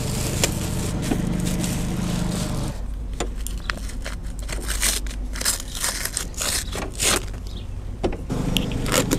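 Plastic bag and protective film crinkling and rustling as they are pulled off a new lawn mower, in many short crackles. A distant lawn mower engine hums steadily for the first few seconds, drops away, and returns near the end.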